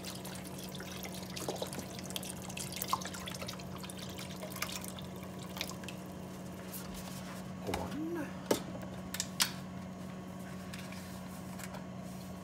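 Beef broth pouring from a carton into a wide pan of mushrooms, a steady splashing of liquid over a low hum, with a few light knocks about two-thirds of the way through.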